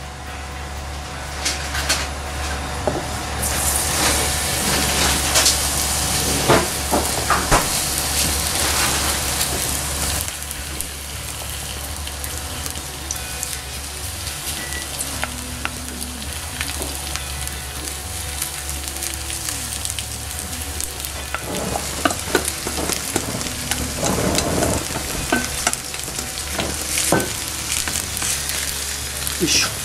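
Chijimi batter of garlic chives and carrot strips sizzling in sesame oil in a hot nonstick frying pan; the sizzle starts up loudly about four seconds in as the mix goes into the oil and keeps going. Chopsticks click and scrape against the pan as the batter is spread thin.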